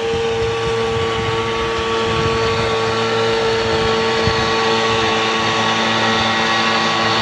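A motor running steadily at one constant pitch, growing slightly louder.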